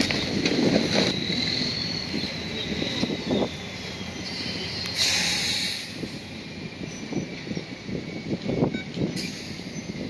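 Crawler bulldozer moving on its steel tracks, the tracks clanking and squealing: a high squeal wavers and slides down in pitch over the first few seconds. A short hiss comes about five seconds in.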